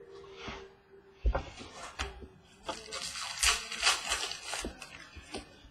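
Trading cards being handled and sorted: a sharp knock, a few light taps, and a short stretch of rustling about halfway through.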